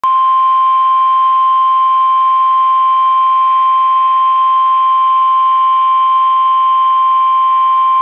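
NOAA Weather Radio warning alarm tone: a single steady 1050 Hz tone, loud and unbroken. It signals that a warning broadcast, here a severe thunderstorm warning, is about to follow.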